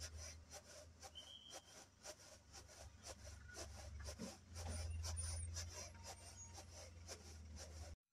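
Small grains rustling and rattling in a shallow bamboo winnowing tray as it is shaken in short, repeated strokes, faint, over a steady low hum.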